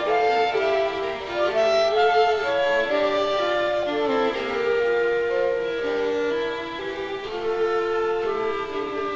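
Live chamber trio of clarinet, violin and a second bowed string instrument playing a waltz, several lines moving at once, with one note held for a few seconds in the middle.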